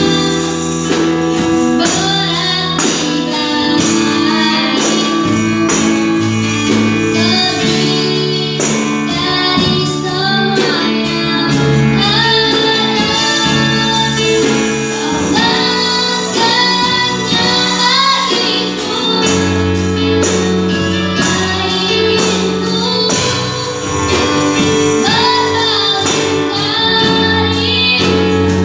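A young singer's voice carrying a song melody over instrumental backing, with regular jingling percussion keeping a steady beat.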